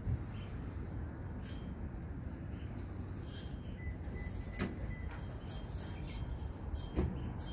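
Outdoor street ambience: a steady low rumble of traffic, with two sharp clicks, one about halfway and one near the end.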